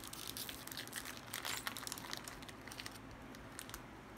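Plastic Oreo cookie wrapper crinkling as it is pulled open by hand: a run of small, faint crackles and rustles that thin out near the end.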